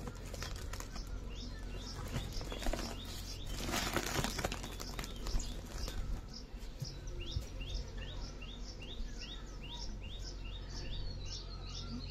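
A woven plastic sack rustles and crinkles as it is pulled off a wooden beehive box, loudest about four seconds in. A bird calls over it in short rising chirps, about two a second, through the second half.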